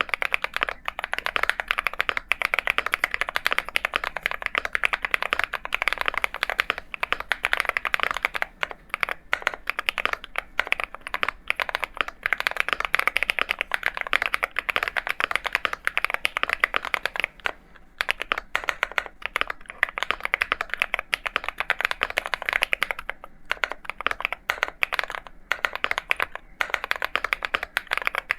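Continuous fast typing on an Akko MonsGeek M1 mechanical keyboard with MMD Princess switches: a dense run of key clacks, broken by a few short pauses.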